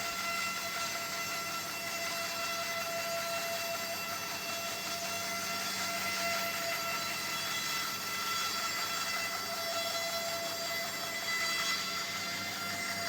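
Centauro 700 vertical bandsaw running and rip-cutting along an acacia log, a steady whine of several even tones over the hiss of the blade in the wood. The blade is a crosscut firewood blade with the wrong tooth count for ripping, and not sharp.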